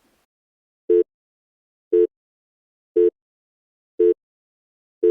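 Electronic countdown timer beeping: five short, identical mid-pitched beeps, one a second, marking the seconds given to answer.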